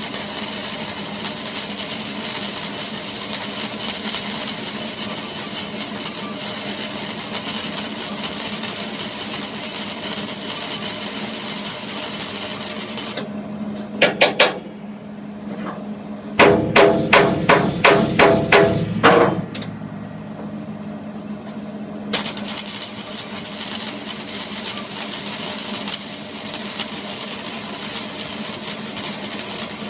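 A hammer striking metal with a ringing clang: two blows, then a quick run of about eight at roughly three a second. A steady mechanical hum with a low tone runs behind, dropping out for several seconds around the blows.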